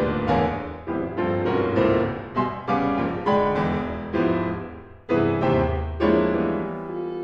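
Piano playing a string of about ten struck chords, each ringing and fading before the next, at the start of a chamber trio for horn, violin and piano. Near the end a long held note begins over the fading piano.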